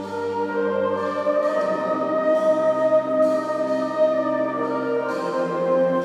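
A fanfare (brass and wind band) plays slow, sustained chords that change every second or two, ringing on in the reverberant space of a large church.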